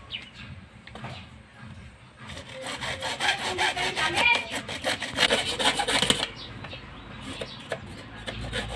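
Hand saw cutting through PVC pipe: quick back-and-forth strokes for about four seconds, starting a couple of seconds in, with scattered small knocks of handling around them.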